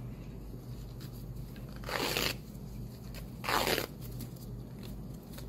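Green self-adherent bandage wrap being pulled off its roll and wound around a forearm, heard as two short peeling sounds, each under half a second, about two and three and a half seconds in, over a steady low hum.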